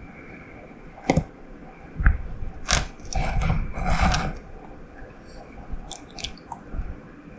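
Scattered short clicks and scrapes, with a denser run of scraping between about two and a half and four seconds in, as an Australian green tree frog works to swallow a live lizard held in its mouth.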